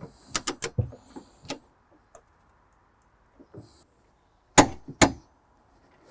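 Click-type torque wrench on a tow bar frame bolt: a quick run of ratchet clicks at the start, then two sharp clicks about half a second apart near the end as the wrench breaks at its set torque of 60, the sign that the bolt is tight.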